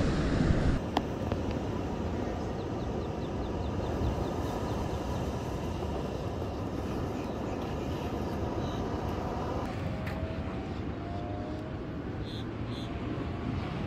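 Steady rushing of ocean surf breaking, with wind on the microphone.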